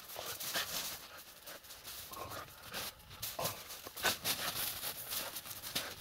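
Irregular crunching and scuffling in snow as a laika dog digs with its nose and paws and bounds about.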